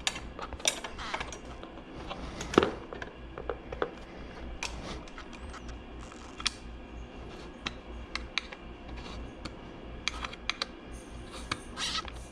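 Hand tools working fasteners on a motorcycle's fender eliminator bracket: scattered light clicks and taps, with one sharper knock about two and a half seconds in.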